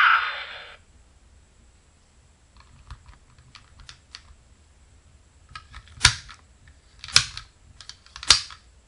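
A toy's electronic sound effect cuts off under a second in. Then a plastic transformation toy is handled: a few light plastic clicks, then three sharp clacks about a second apart.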